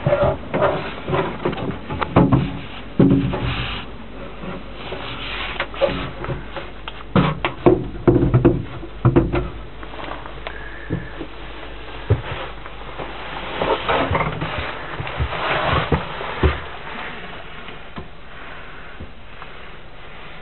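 Irregular knocks, bumps and rustles from someone moving through a small yacht cabin while handling the camera, with clothing brushed aside. The busiest stretches come in the first half and again about three quarters through, then it settles down.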